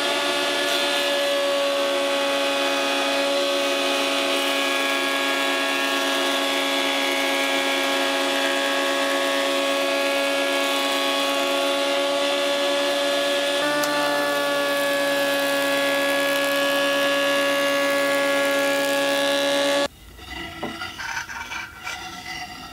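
Scheppach HMS1070 planer-thicknesser running as a surface planer, its 1500 W motor and two-knife cutterhead planing a pine strip, with a shop vacuum drawing off the chips. The steady whine dips slightly in pitch partway through, then the machine is switched off and cuts out suddenly near the end, leaving faint wood-handling sounds.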